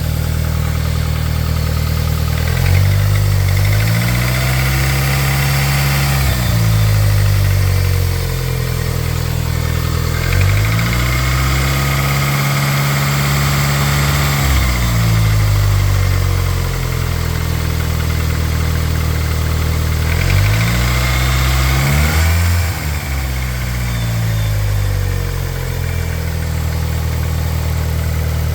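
Chrysler 420A 2.0-litre DOHC four-cylinder engine idling and revved up three times, each rev held a few seconds before falling back to idle. A knock runs through it, which the owner suspects is piston slap or valvetrain knock.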